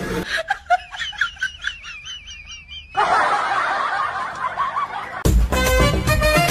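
A high-pitched giggling laugh sound effect in quick wavering notes, followed by a second, lower laughing clip; music with a strong beat comes in about five seconds in.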